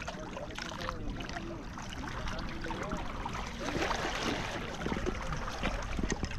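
Sea water washing and sloshing against the rocks of a breakwater, swelling about four seconds in.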